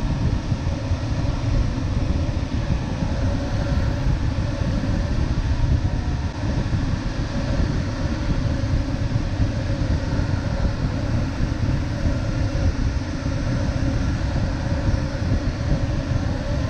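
Steady deep rush of airflow over an LS7-WL glider's canopy and fuselage, heard from inside the cockpit in flight.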